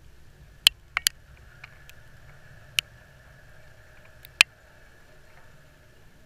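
Five sharp, irregularly spaced ticks very close to the microphone, over a steady low rumble.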